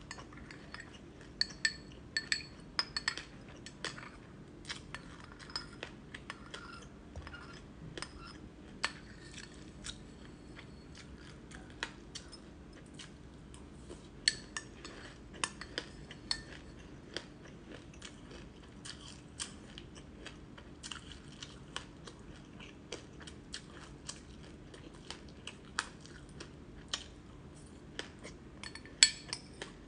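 Close-up crunching and chewing of frozen black sesame seeds with passion fruit: many short crisp crackles, some in quick clusters. A metal spoon now and then clinks and scrapes the glass bowl.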